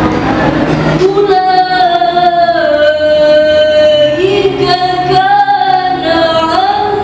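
A girl's solo voice reciting the Quran in the melodic tilawah style, holding long ornamented notes that bend and slide in pitch. A new phrase begins about a second in and another about four seconds in.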